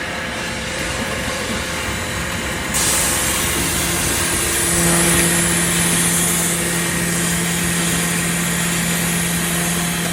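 Chemical grinder machine running with a steady mechanical noise. About a quarter of the way in a high hiss sets in, and about halfway a steady low hum joins it and holds.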